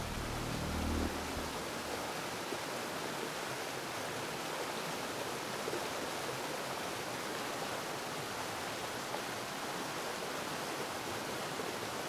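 Steady, even hiss with no tone or rhythm in it; a deeper low sound cuts off about a second in.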